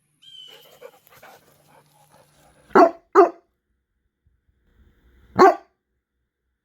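A dog barking: two quick barks a little under three seconds in, then a single bark about two and a half seconds later.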